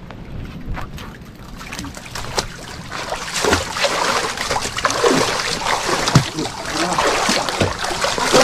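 Water splashing and trickling, growing louder about three seconds in, with many short splashes.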